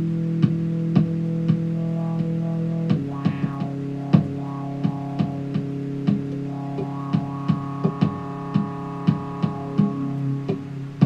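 Synth ambient retro trance music: sustained synthesizer chords over a steady beat of sharp hits, the chord changing about three seconds in.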